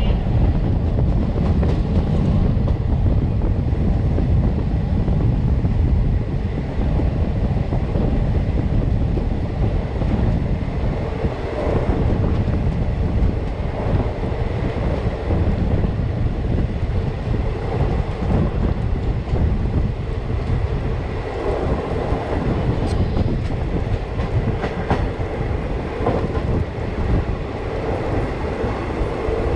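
Express passenger train running at speed, heard from beside the coach: a steady rumble of wheels on rails, with clickety-clack over the rail joints.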